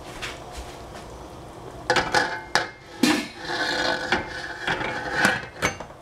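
Stainless steel pressure cooker lid being put on the pot and closed. Several sharp metal clanks start about two seconds in, then metal scraping with a ringing tone as the lid slides on the rim, and two last clanks near the end.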